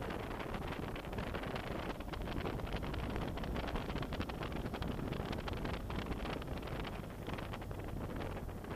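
Wind buffeting the microphone over the steady running of a BMW F800GS motorcycle's parallel-twin engine on the move, with frequent small knocks and rattles.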